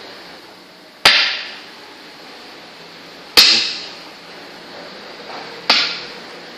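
Three sharp clacks about two seconds apart, each with a brief ringing tail, from play at a makruk (Thai chess) board.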